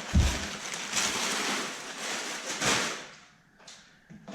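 Rustling and handling of packaging while a parts box is unpacked, with a thump just after the start; the noise dies down about three seconds in.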